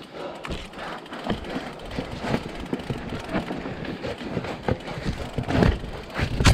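Mountain bike rolling down a steep dirt forest trail: tyre noise on the loose ground, with the chain and frame rattling in a string of sharp knocks over bumps and roots, getting louder near the end.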